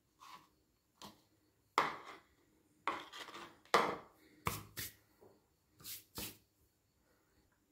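Knocks and scrapes of a cleaver and a bowl being moved about on a plastic cutting board as it is cleared: about nine separate sharp knocks, some in quick pairs, loudest in the middle.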